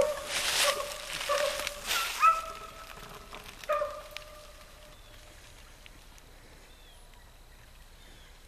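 Hounds baying on a trail: several long, drawn-out bawls, some rising at the end, overlapped early on by a loud rushing noise. The baying stops about four seconds in.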